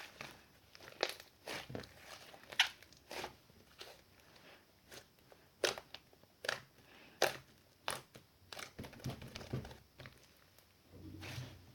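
Irregular crisp crunching and crinkling clicks, a few a second, in a small room.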